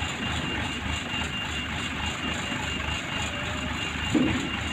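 An ACE mobile crane's engine running steadily under a constant rumble, with a thin steady high tone over it. A brief louder sound comes about four seconds in.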